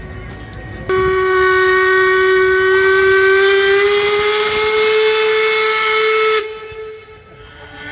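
Steam tug's steam whistle blown in one long blast of about five and a half seconds. It starts suddenly about a second in, its pitch rises slightly as it sounds, steam hisses along with it, and it cuts off abruptly.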